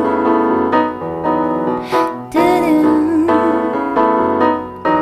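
Piano or keyboard playing slow, repeatedly struck chords in a live song performance. About halfway through, a singer holds a wavering note over them.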